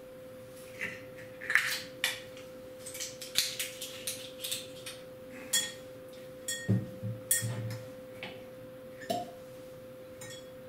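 Hands opening a glass whisky bottle of Ardbeg 10 Year Old: a scattered series of short clicks, clinks and scrapes as the seal and stopper are worked off the neck, some clinks ringing briefly. A steady low hum runs underneath.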